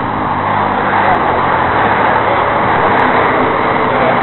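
A vehicle engine running steadily, partly buried under a loud, even rushing noise.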